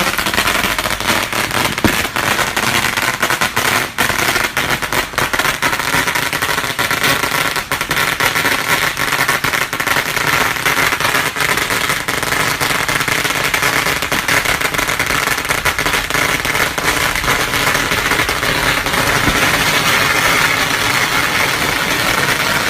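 A long string of 16,000 firecrackers going off in one dense, unbroken crackle of rapid bangs, which stops at the very end as the string burns out.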